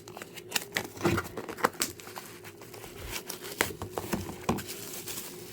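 Packaging rustling and crinkling with irregular clicks and taps as a set of coasters is unwrapped and handled.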